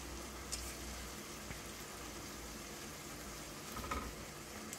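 Vegetables sizzling faintly and steadily in a pan as boiled penne is tipped in, with a couple of light knocks of pasta landing.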